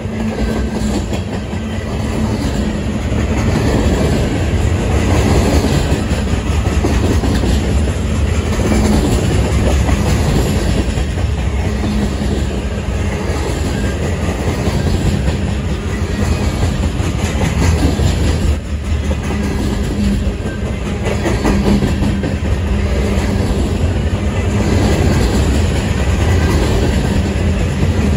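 Freight train cars, centerbeam lumber flatcars and boxcars, rolling past close by: a steady loud rumble of steel wheels on the rail with a clickety-clack over the rail joints, easing for a moment partway through.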